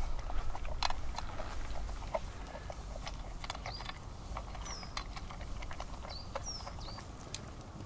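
Golden retriever lapping and smacking at a metal bowl: a run of irregular wet mouth clicks, thicker in the first few seconds and then sparser.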